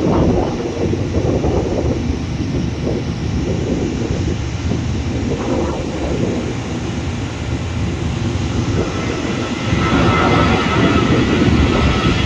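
Jet airliner engines rumbling steadily, growing louder about ten seconds in.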